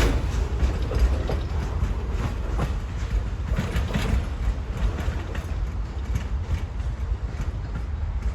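Amtrak Auto Train's cars rolling by on the rails: a steady low rumble with irregular light clicks from the wheels.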